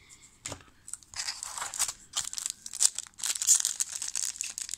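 Trading card pack wrapper being torn open and crinkled in the hands, a dense crackling that starts about a second in.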